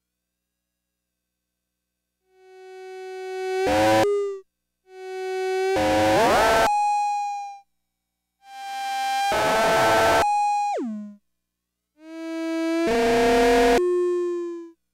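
Flight of Harmony Infernal Noise Machine desktop analog synthesizer sounding four buzzy notes, one every three to four seconds, after about two seconds of silence. Each note swells up and turns harsh and noisy. The pitch glides upward in the second note and drops sharply at the end of the third.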